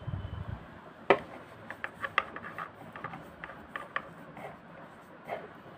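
A cloth rubbing and wiping a small metal hook-race ring from a sewing machine, with light clicks and scrapes as the ring is handled and cleaned of lint and dust. A soft thump opens it and one sharp click comes about a second in.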